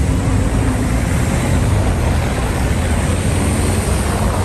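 City traffic passing on a snowy street: a steady rumble of car engines and tyre noise.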